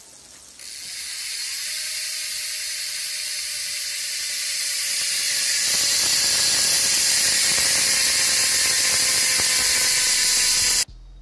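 A mountain bike's rear freehub buzzing as the wheel spins freely: a dense, fast ratcheting buzz with a faint whine that slowly falls in pitch as the wheel runs down. It grows louder through the first half and cuts off abruptly near the end.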